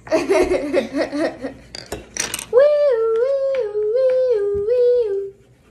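A child humming a little tune that steps back and forth between a higher and a lower note, about four times. It follows a moment of indistinct voice sound and a few light clicks.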